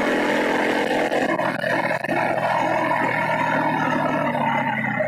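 Small gasoline engine of a motorized bicycle running steadily while riding, its note holding one pitch. Wind rushes over the microphone and eases about a second in.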